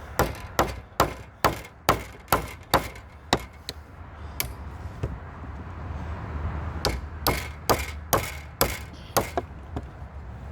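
Repeated sharp blows of a hand tool chopping into wooden timber, about two a second: a run of about nine, a short pause with two lighter knocks, then about six more. The work is against a stubborn knot in the wood.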